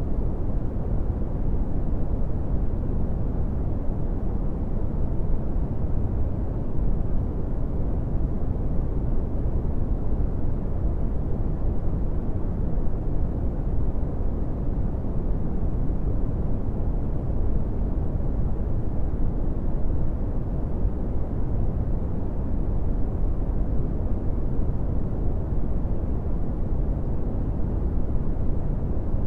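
Brown noise: a steady, deep hiss with most of its weight in the low rumble and little treble, unchanging throughout.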